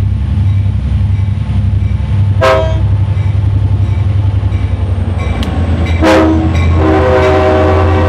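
Pair of EMD GP39-2 diesel locomotives, turbocharged V12s, drawing near and passing with a steady low engine rumble. There is a short horn toot about two and a half seconds in, then a louder, longer horn sound from about six seconds in as the lead unit goes by.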